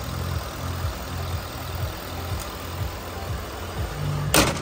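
Ford 5.0L V8 of a 2013 F-150 idling steadily, then the hood slammed shut about four seconds in, one loud bang.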